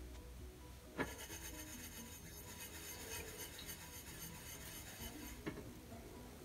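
Faint scraping of a paintbrush stirring watered paint in the cups of a metal muffin pan, with a light tap of the brush about a second in and another near the end.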